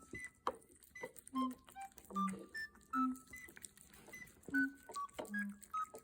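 Black cat chewing noisily with its mouth open: irregular wet smacking and clicking, over light background music with a simple repeating melody.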